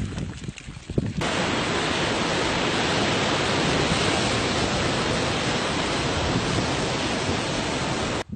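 A loud, steady rushing noise, even from low to high, starts abruptly about a second in and cuts off abruptly near the end.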